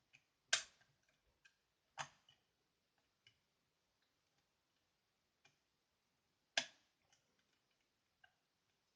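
Sparse metallic clicks from a pick wire and pre-lifter working the levers of an ERA Fortress 5-lever deadlock: three sharp clicks, two close together near the start and one later, with a few faint ticks between.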